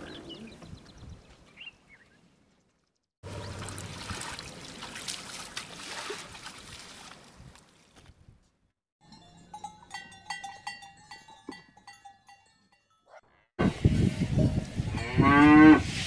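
A cow gives one loud moo near the end. Before it come quieter stretches of outdoor sound, broken by short silences.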